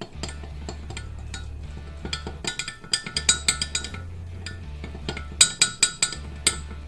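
Background music with a bass line, over sharp clinks of a utensil against dishes. The clinks come in two quick runs, one about halfway through and one near the end.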